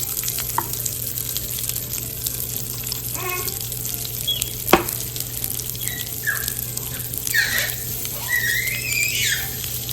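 Liquid fizzing and bubbling in a baking soda and citric acid model volcano: a steady soft hiss, with one sharp click near the middle and a few faint vocal sounds.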